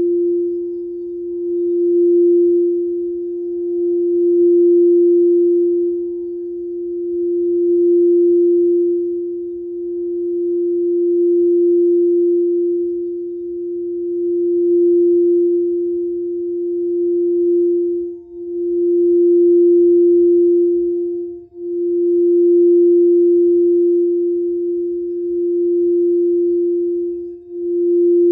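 Frosted quartz crystal singing bowl, a green heart-chakra bowl, being rimmed with a wooden mallet. It sustains one steady ringing tone that swells and fades every few seconds, with a few brief dropouts in the second half.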